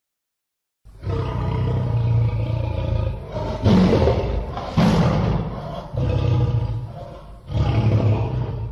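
A lion roaring, a series of about five rough, low roars each a second or two long, starting about a second in.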